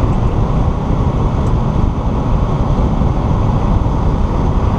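Valtra tractor's diesel engine running steadily under load while pulling a five-furrow reversible plough, heard as a deep, even drone inside the cab.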